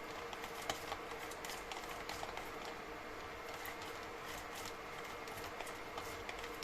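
Kitchen preparation sounds: scattered light clicks and taps, the sharpest about a second in, over a steady hum.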